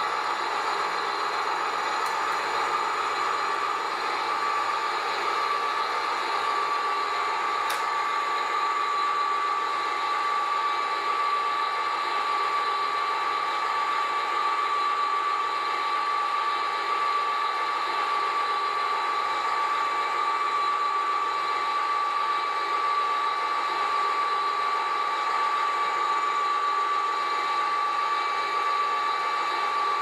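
Steady electric motor whine from radio-controlled model machinery, holding one even pitch throughout.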